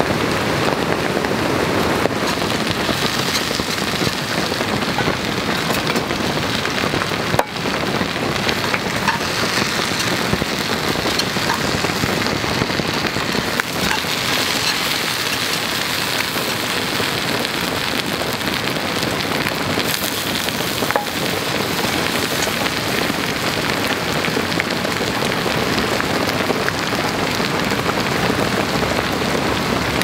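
Steady rain falling, an even continuous hiss.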